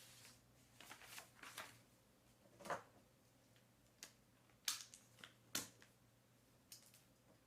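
Quiet room with a few soft, irregularly spaced clicks and taps of small objects being handled on a desk.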